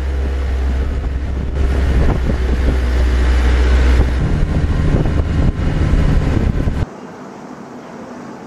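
Loud engine noise on an aircraft carrier's flight deck, from deck vehicles and J-15 jets: a deep steady hum under a broad roar. It cuts off abruptly about seven seconds in, leaving quieter wind noise.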